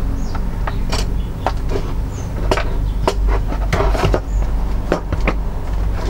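Handling noise: a plastic power adapter, its cords and a small pump being picked up, moved and set down on a wooden workbench, making a string of irregular clicks and knocks over a steady low rumble.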